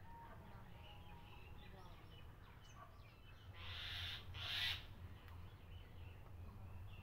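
Faint chirping of small birds, with two short harsh, hissing rasps close together a little past the middle.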